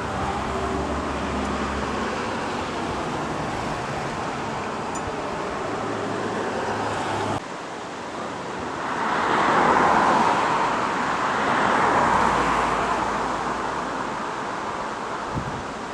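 Steady outdoor rushing background noise that drops abruptly about halfway through, then a louder rush that builds and fades over several seconds.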